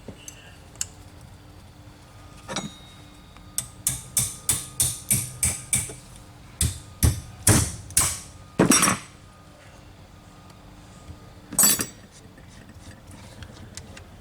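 Tapping on metal with a hammer: a quick run of about a dozen sharp knocks, roughly three a second, and one more knock near the end. The tapping is at the M-100's mechanical fuel injection pump, whose control rack is stuck.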